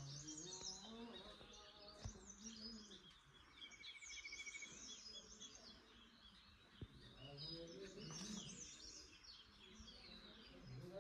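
Faint chorus of small birds chirping and calling over one another, with a short rapid trill about four seconds in.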